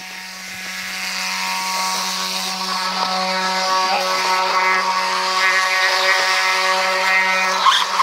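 Electric RC dirtbike's motor and gyroscope flywheel whining steadily at a fixed pitch while the bike lies crashed on its side. It grows louder over the first couple of seconds, and near the end there is a sharp click, after which the whine stops.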